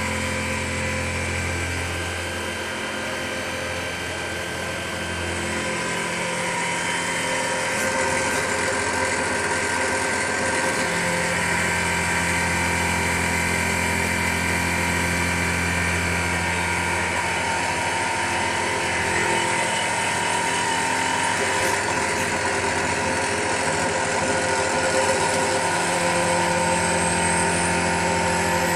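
Macpower Turn O' Mill 200 CNC turn-mill centre running a milling cycle, a driven end mill in a live-tool holder cutting a part held in the chuck, with coolant spraying. It gives a steady machine hum and hiss, with a low hum that drops out and returns in stretches of several seconds as the machine's motions change.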